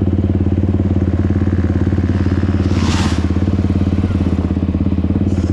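ATV engine idling steadily. A brief rushing noise comes about three seconds in.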